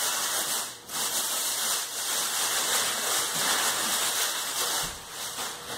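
Plastic wrapping crinkling and rustling as it is pulled off and bunched up by hand, almost continuous with a short break about a second in, easing off near the end.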